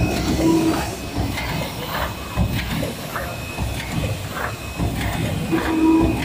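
MYZG-100 paper lid making machine running, a steady mechanical clatter with regular clacks about twice a second as it cycles. A short low tone sounds twice, once near the start and once near the end.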